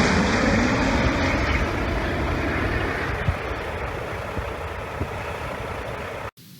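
Engine noise of a firefighting airtanker fading steadily as it flies off after a retardant drop, then cutting off abruptly near the end.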